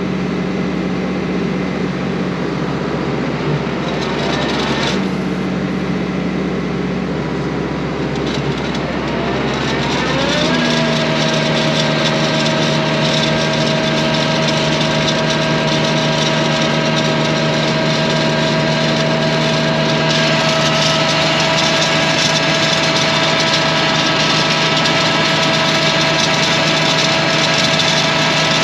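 Tractor engine running steadily while powering a pump that moves slurry through a hose. About ten seconds in, the engine speed rises smoothly to a higher, louder steady note.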